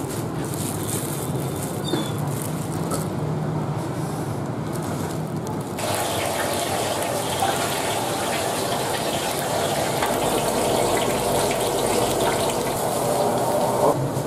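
Steady rushing noise of a commercial kitchen's gas wok burners running under woks of frying oil. It gets louder and fuller about six seconds in, with a short knock near the end.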